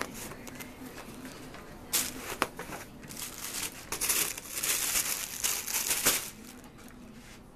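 Close rustling and crinkling in uneven bursts, with a few sharp clicks, from about two seconds in until just past six seconds, then fading to a low hiss.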